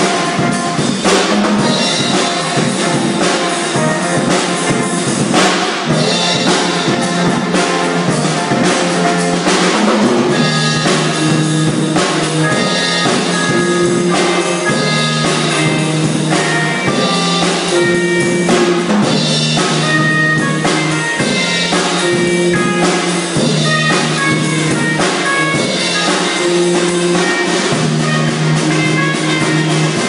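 A band song playing, with a drum kit keeping a steady beat under held instrumental notes.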